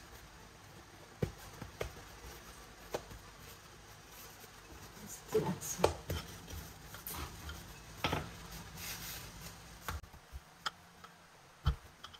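Kitchen handling sounds while working bread dough: scattered light knocks and taps of hands and utensils on the work surface, busiest about five to six seconds in and thinning out near the end.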